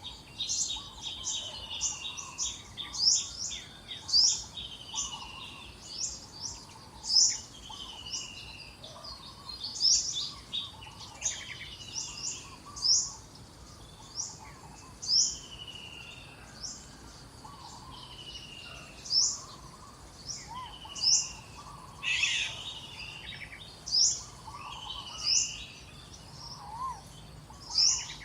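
Several birds singing and calling: sharp high chirps repeating every second or so, short falling whistles, and lower warbled calls over a faint hiss of background forest noise.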